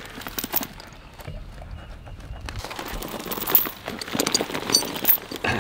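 Steel chain clinking and scraping in loose dirt as it is fed under a tree stump's root, with scattered irregular knocks that come more often in the second half.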